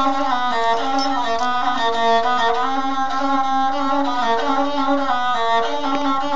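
A rababa, the Bedouin single-string bowed fiddle, playing a solo melody of held notes that step up and down.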